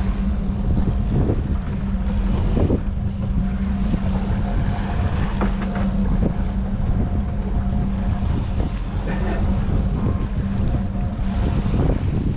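Fishing boat's engine running steadily, a low rumble with a constant hum, and wind gusting on the microphone now and then.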